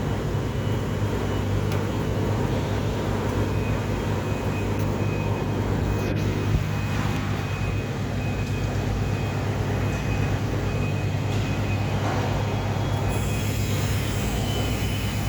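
A machine running steadily with a low hum, unchanged throughout.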